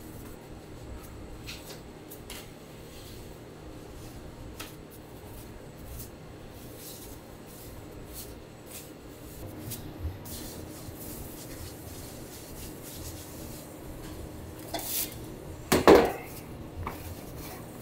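Pizza dough being hand-tossed and caught, with faint soft pats and ticks over low kitchen room noise, then near the end the dough slapped down onto a floured counter with a loud double slap.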